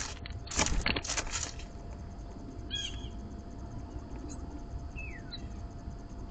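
Bird wings flapping in several quick flurries in the first second and a half, followed by a few brief, faint bird chirps.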